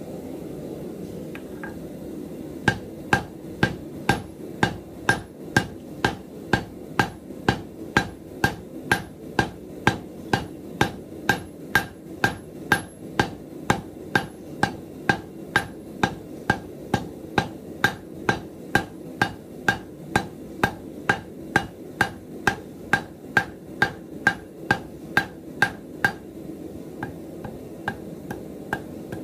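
Hand hammer forging a red-hot 3/16-inch round steel bar on an anvil: steady blows at about two a second, each with a bright metallic ring, starting a couple of seconds in and turning to lighter taps near the end. A steady low hum runs underneath.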